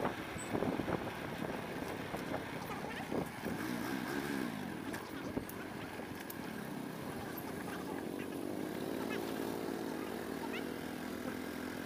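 Motorcycle engine running, its pitch wavering up and down about four seconds in and holding steadier in the second half.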